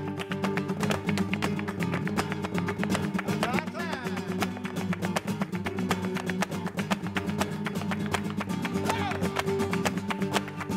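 Flamenco guitar playing a soleá, over a dense, rapid run of sharp percussive strikes from a flamenco dancer's footwork (zapateado).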